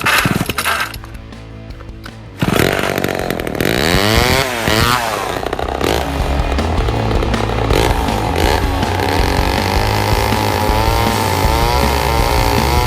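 Homelite XL-12 two-stroke chainsaw engine starting up about two seconds in, revving up and down, then running steadily.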